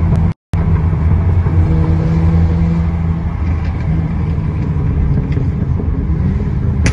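Car engines running at steady cruising speed with heavy road rumble, the sound of a convoy of cars on a highway. The sound cuts out completely for a moment about half a second in, then resumes.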